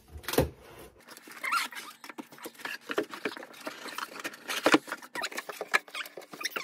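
A cardboard shipping box being opened by hand: flaps scraping and rustling, with many quick scratchy clicks and crinkles, the sharpest about half a second in and again near the middle.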